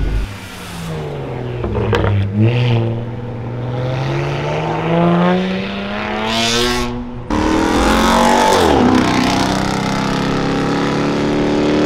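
Car engines accelerating as cars pull out one after another. The first engine note rises in pitch over about seven seconds. A short hiss comes at about six and a half seconds, and then a louder engine comes in suddenly and runs fairly steadily to the end.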